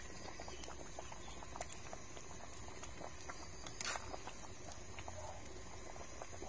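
Pot of bamboo-shoot curry bubbling at the boil: a steady run of small pops and patter, with one louder click about four seconds in.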